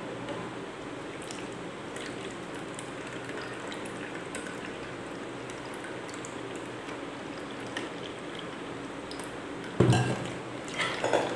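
Thick blended beetroot pulp poured from a steel mixer jar into a steel mesh strainer, juice trickling and dripping through into a small plastic bowl. About ten seconds in the jar is set down with a thump, followed by a few short clinks.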